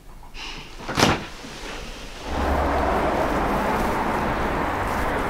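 A single sharp knock about a second in. Then, from about two seconds in, a steady wash of outdoor street noise with distant traffic and a low hum.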